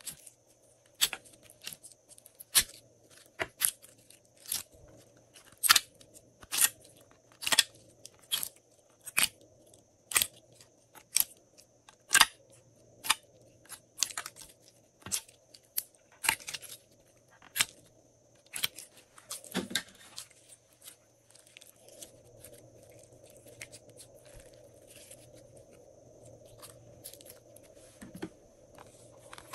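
Glossy slime being squeezed and pulled out of a plastic mold tray, making sharp sticky clicks and pops about once a second. The clicks stop about two-thirds of the way through, leaving a faint steady hum.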